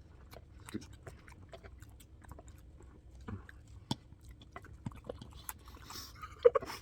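Person chewing a mouthful of food, with irregular soft wet clicks and smacks, and a briefly louder mouth sound near the end.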